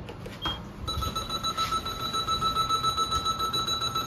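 Mitsubishi NexWay lift car's buzzer sounding a steady high beep that pulses rapidly, about eight times a second, starting about a second in.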